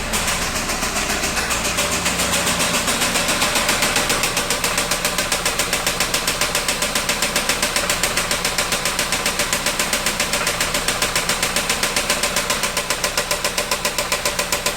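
Volkswagen AP 1.8 four-cylinder engine idling with a loud, rapid, regular knock, about five knocks a second. The owner puts it down to play in a connecting rod bearing, since a new oil pump, new hydraulic lifters and checks of the timing and camshaft have not cured it.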